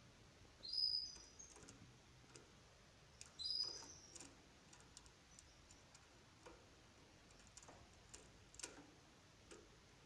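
Domestic canary giving two short chirping calls, about three seconds apart, with a few faint light clicks after them.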